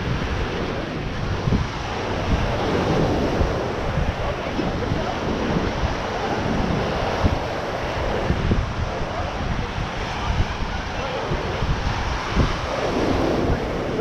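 Ocean surf washing onto a sandy beach, with wind buffeting the microphone in irregular low rumbling gusts.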